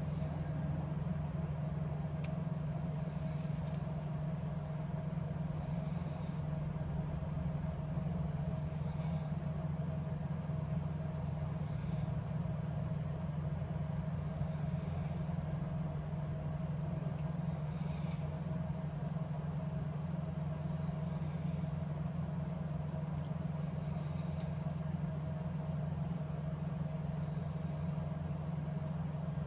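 A steady low machine hum with a fainter constant whine above it.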